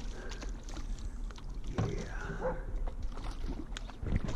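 A hooked largemouth bass splashing and thrashing at the water's surface beside a small boat as it is reeled in, with scattered sharp splashes. A brief whine comes about halfway through.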